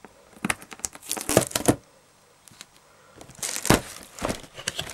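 Firework cake's packaging being handled and torn open: crinkling and tearing of wrapping in two spells of rustling, with a short quiet gap between.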